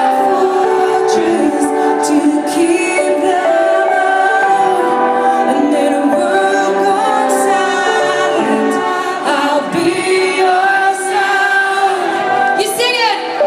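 Live trance music: held synth chords under a woman's sung vocal, with a quick swooping synth sweep near the end.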